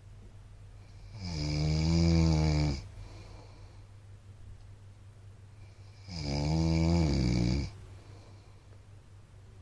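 A man snoring in his sleep: two long, loud snores about five seconds apart, each lasting over a second and a half, with a faint low hum in the quiet stretch between them.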